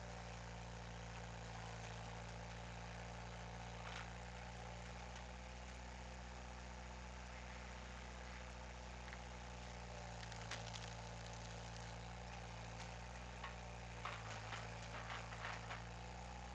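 Skid steer engine running steadily at idle, with a few sharp cracks and knocks, most of them bunched near the end.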